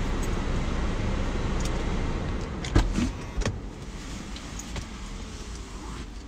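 Steady noise heard from inside a parked car, broken by a car door shutting with a heavy knock about three seconds in; after that the noise is quieter.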